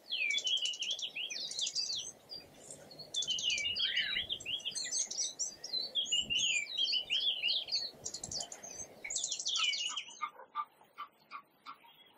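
Songbirds singing: rapid chirps, trills and sweeping whistled notes, one phrase after another, for about ten seconds. Near the end the song gives way to a run of short, lower calls, about four a second.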